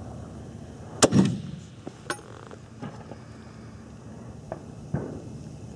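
A single shot from a Swiss K-31 rifle firing GP11 7.5×55mm Swiss ammunition, about a second in: a sharp crack with a short rumbling echo. A sharp click follows about a second later, then a few faint clicks and a smaller thud near the end.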